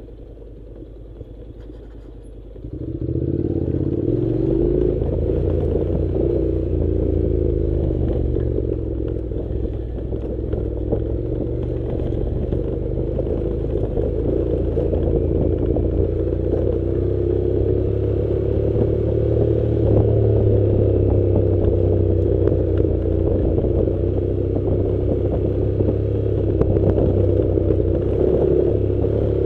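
Honda NC700 motorcycle's parallel-twin engine running quietly, then about three seconds in growing much louder and running steadily under way, its pitch rising and falling gently, with clatter and scraping from riding a dirt track.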